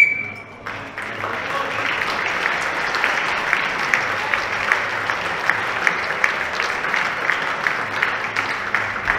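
A brief, loud high tone right at the start, then audience applause with sharp individual claps, starting about a second in and holding steady.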